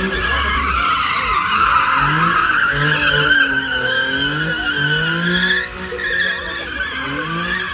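Car spinning donuts: a continuous tyre squeal that wavers in pitch, over an engine revving up and down. The squeal breaks off sharply a little before six seconds in, then picks up again more quietly.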